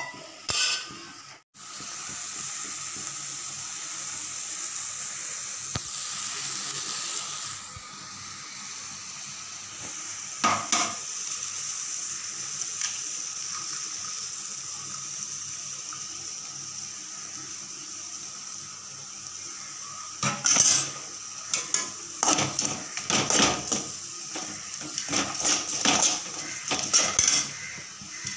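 Greens frying in a metal pot with a steady sizzle, one clank about ten seconds in. From about twenty seconds in, a metal ladle scrapes and clanks against the pot in quick, irregular strokes as the greens are stirred.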